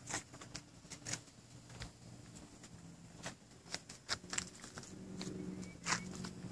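Soft, irregular footsteps and shoe scuffs on asphalt, with a faint low hum joining about four seconds in.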